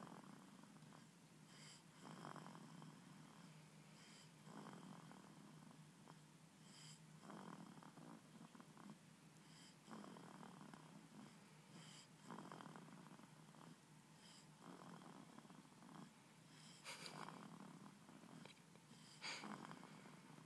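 A baby snoring faintly in sleep, with one snoring breath about every two and a half seconds.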